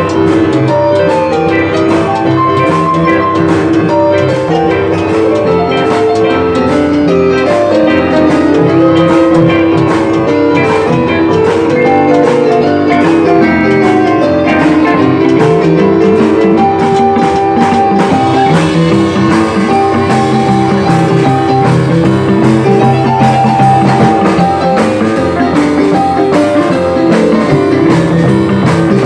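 Live R&B band playing an uptempo boogie-woogie number with guitar over a steady drum beat.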